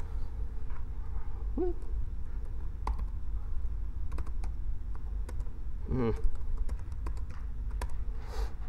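Scattered keystrokes on a computer keyboard as commands are typed into a text editor, over a steady low hum.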